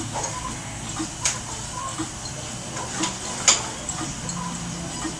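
A few sharp, isolated clicks and clinks over steady background noise, the loudest about three and a half seconds in.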